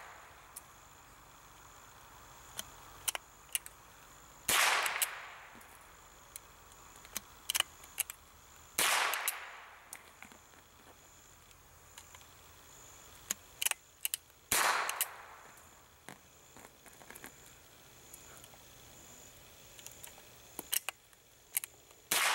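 Single-shot .22 LR bolt-action rifle fired four times, several seconds apart; each shot is a sharp crack with a short trailing echo. Between shots come small clicks and rattles of the bolt being worked and single cartridges being fumbled into the chamber by hand, which is what holds the rate of fire down.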